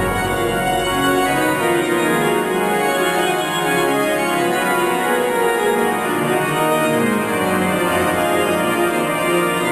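Organ music, held chords sounding steadily at an even level.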